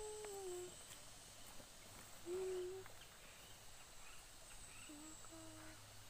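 A person softly humming a few short notes at stepping pitches, near the start, again about two seconds in, and twice near the end, with faint high chirps in the background.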